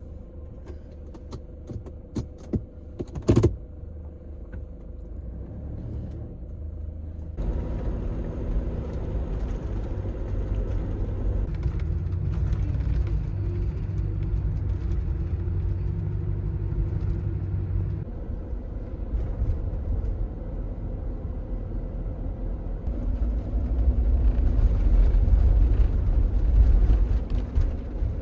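Camper van's engine and road rumble heard while driving, its pitch shifting in steps a few times, with a sharp knock about three seconds in.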